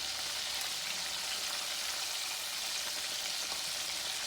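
Catfish pieces frying in hot oil: a steady crackling sizzle.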